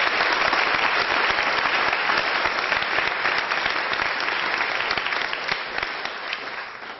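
Audience applauding loudly in a hall, the clapping thinning and fading out near the end.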